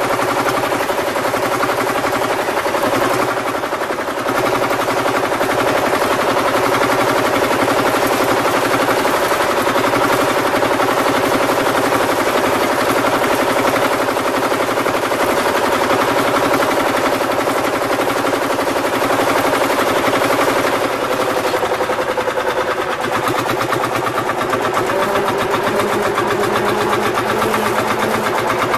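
Single-cylinder two-stroke diesel engine of a Field Marshall tractor running close up, with a fast, even beat of sharp exhaust pops.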